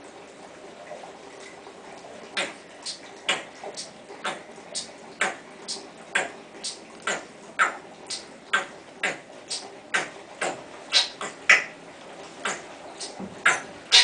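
A steady beat of short, sharp clicks, about two a second, some higher and some lower, starting about two seconds in and getting louder toward the end.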